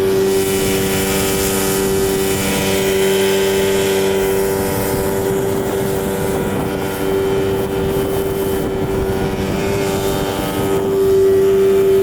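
Boat's outboard motor running steadily at cruising speed, one even pitch throughout, with wind buffeting the microphone. It gets a little louder near the end.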